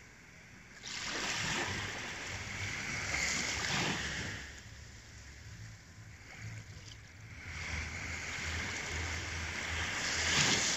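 Small sea waves washing up a sandy beach: two surges of surf, one swelling and fading over the first few seconds, the second building to its loudest as it breaks near the end.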